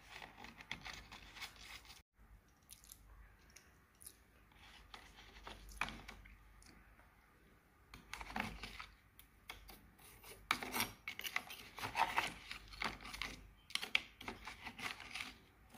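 Dry clay chunks and clay powder being rubbed, crumbled and scraped against a clear plastic tub: gritty rubbing and crunching in irregular strokes, busier in the second half, with a brief break about two seconds in.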